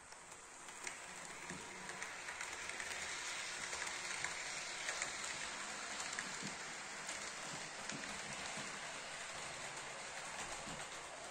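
HO-scale Mehano 2-8-0 Consolidation model steam locomotive and its cars running along the track: a steady, fine clicking rattle of small wheels on the rails that grows louder over the first few seconds and then eases slightly.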